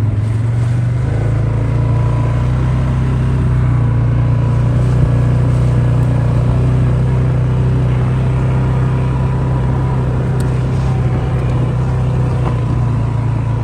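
An engine running steadily: an even, low hum that holds unchanged throughout.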